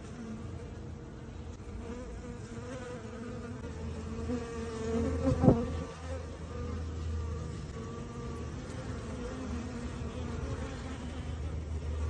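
Honeybees in a dense cluster buzzing as a steady hum that wavers slightly in pitch. A single sharp click comes about halfway through.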